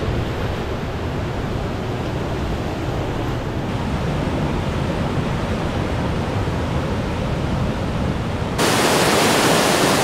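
River whitewater rushing at a waterfall and rapids: a steady, dense rush of water that becomes abruptly louder and brighter about eight and a half seconds in.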